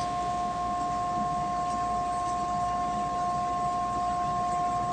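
A steady hum of two unchanging tones, one higher than the other, holding level over a low hiss.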